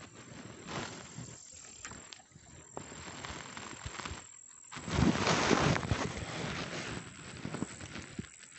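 Irregular rustling and knocking close to the microphone, with one louder noisy rush lasting about a second, about five seconds in.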